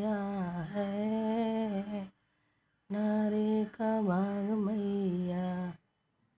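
A woman singing a Hindi devi geet (devotional song to the goddess) with no instruments: two long, drawn-out sung phrases with a short pause between them, stopping a little before the end.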